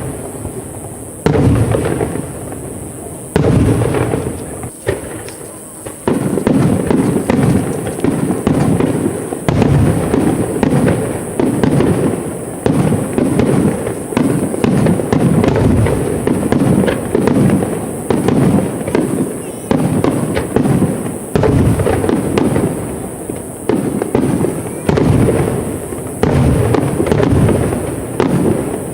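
Aerial fireworks shells bursting. There are a couple of separate booms in the first few seconds, then from about six seconds in a rapid, continuous barrage of bursts.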